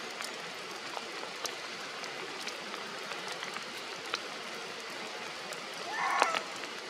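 Steady rain falling through tree foliage, a continuous hiss with scattered sharp drips. A short high call, the loudest sound, breaks in about six seconds in.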